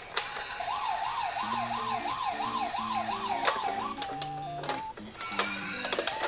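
Toy ambulance miniature car's electronic siren sounding a fast wail, about three rises and falls a second, then breaking into short steady tones and a slower rising sweep near the end. Under it run a low stepped melody and a few sharp clicks.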